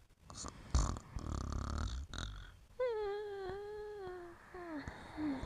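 A sleeper snoring softly: a low, rough snoring breath, then a long, slightly falling whine and two short whimpers made in sleep.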